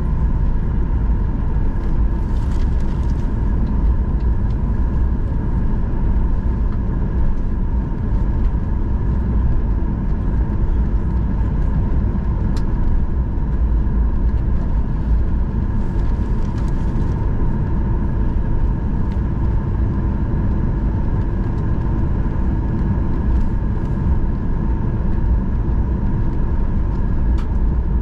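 Boeing 737-800's CFM56-7B turbofan engines running steadily, heard from inside the cabin: a deep, even rumble with a steady whine on top.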